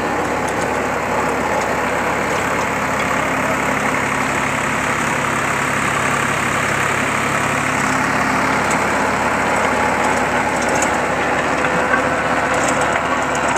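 Swaraj 744 XT tractor's three-cylinder diesel engine running steadily under load as it drives a rotavator from the PTO at 540 RPM, with the tiller's spinning blades churning through the soil.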